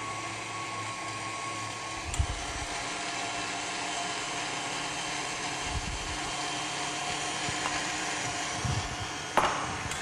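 KitchenAid Artisan stand mixer running steadily at low speed, its wire whisk beating a cream-cheese batter in a glass bowl.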